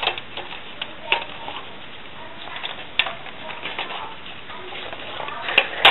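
A dog nosing at a plastic slide-puzzle treat toy: a few sharp plastic clicks and knocks as the sliding disc shifts, the loudest pair near the end.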